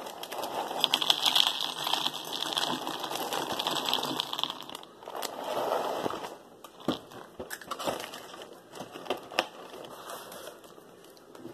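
Froot Loops cereal poured from the box into a plastic bowl: a dense rattling patter of pieces with crinkling of the box's plastic liner for about five seconds, then the box is shaken and the last few pieces drop as scattered clicks.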